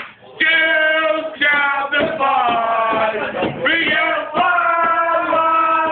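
Men singing a song in long, drawn-out notes, with a few short breaks between phrases.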